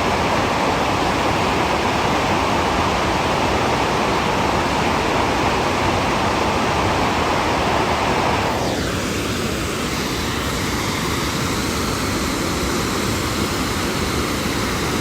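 Water spilling over a hydroelectric dam: a loud, steady rush of falling water. A little over halfway through, the rush drops slightly and its tone changes, with a short falling sweep.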